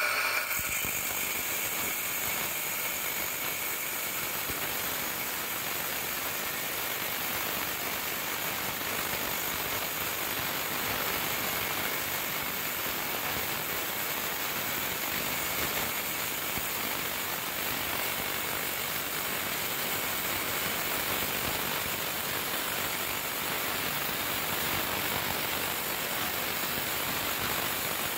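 Bench grinder running with a rough piece of nagasui agate held against its grinding wheel: a steady grinding noise as the stone is ground down.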